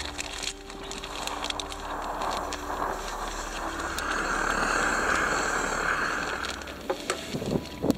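A gust of wind swelling and dying away over about five seconds, followed by a few sharp knocks near the end.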